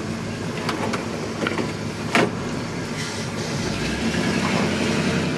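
The factory 350 V8 of a 1972 Chevrolet C10 pickup running while the truck is driven, heard from inside the cab. A single sharp click comes about two seconds in, and the engine grows a little louder in the second half.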